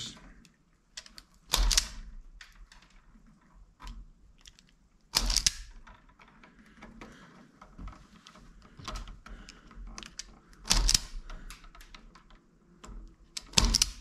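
Hand wire strippers stripping the insulation off the ends of 12-gauge white wires: four loud sharp snaps a few seconds apart as the tool is squeezed, with small clicks and rustling of the wires between.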